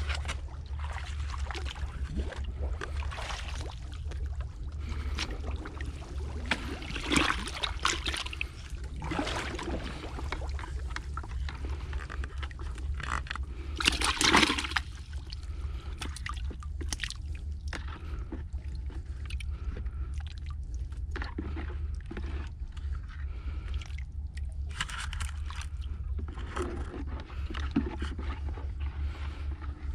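Hands splashing and sloshing in shallow muddy water in irregular bursts over a steady low rumble. The loudest burst comes about fourteen seconds in, at a plastic bucket as a caught snakehead fish is put in.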